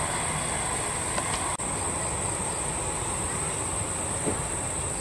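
Airbus A320's jet engines running at taxi power, a steady rumble and hiss, under a constant high-pitched insect buzz from the grass. The sound drops out for an instant about a second and a half in.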